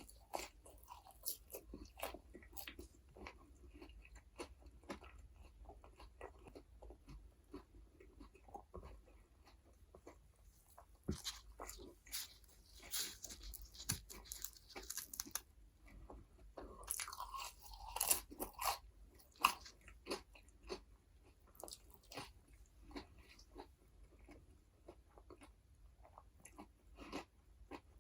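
Close-miked eating: a person biting and chewing crunchy fast food (McDonald's burgers and fries), with irregular wet clicks and crunches and a couple of louder stretches of crunching around the middle.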